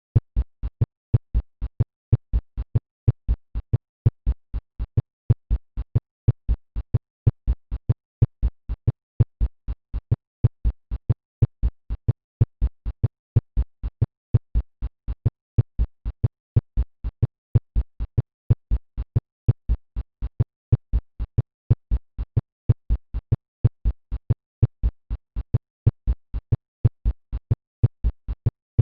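Recorded heart sounds heard through a stethoscope: a regular series of paired low thumps, the first and second heart sounds (lub-dub), repeating steadily.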